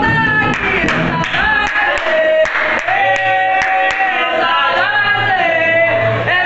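Group singing an Umbanda ponto (sacred chant) in call-and-response style, backed by atabaque hand drums and handclaps.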